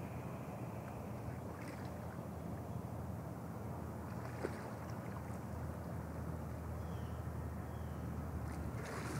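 Tiger swimming through a pond: water sloshing around it, with a few brief splashes, over a steady low rumble.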